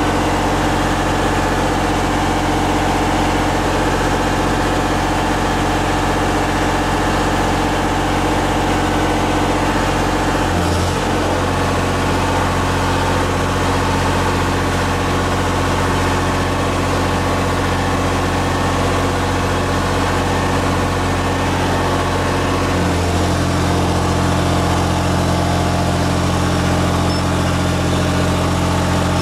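Miller 400D welder-generator's diesel engine running steadily under heavy electrical load. Its note changes abruptly about 11 seconds in and again about 23 seconds in as the heat pump and backup electric heat come on, pushing the generator past its rated output.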